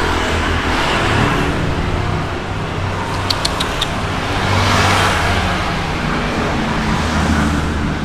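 Road traffic going by, a passing vehicle swelling and then fading about halfway through over a steady low rumble. A few light clicks just before it.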